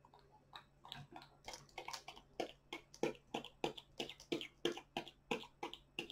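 Small hard-plastic toy soldiers and horse-and-cart pieces being handled and set down, a quick run of light clicks and taps, several a second, growing a little louder.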